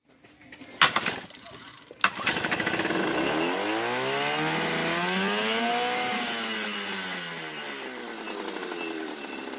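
Volvo Penta Sail 90 9 hp two-stroke outboard starting: a sharp crack about a second in and another at two seconds, then the engine catches and runs, its pitch climbing as it revs up and falling back over the last few seconds.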